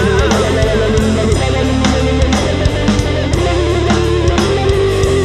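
Rock music with electric guitar and drums keeping a steady beat.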